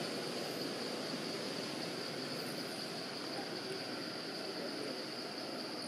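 Steady outdoor ambience: a constant high insect drone over an even hiss, with no distinct calls or knocks.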